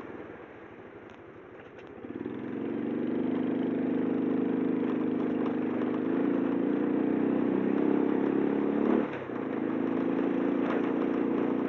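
Small motorcycle engine heard from the rider's seat, quiet at first and then picking up about two seconds in as the bike gets under way, running at a steady note. The note dips briefly about nine seconds in and then comes back.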